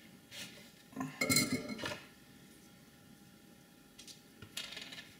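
Metal clinking and rattling as a soldering iron is set down in its metal stand, loudest about a second in, with a few lighter clinks near the end as other tools are handled.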